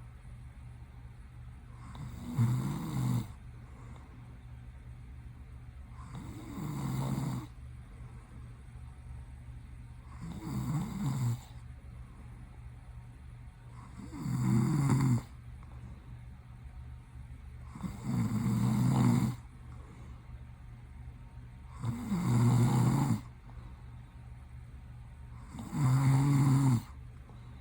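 A man snoring in his sleep: a loud snore about every four seconds, seven in all, each lasting about a second, in an even rhythm.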